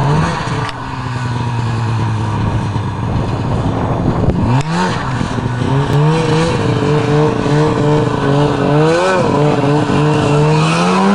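Snowmobile engine idling low and steady, then revving up about four and a half seconds in. It keeps running faster with its pitch wavering up and down, and climbs again near the end as the sled accelerates.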